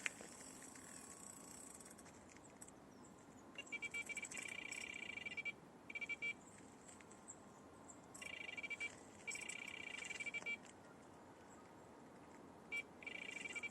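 Electronic carp bite alarm sounding several runs of rapid high beeps, signalling movement on the line.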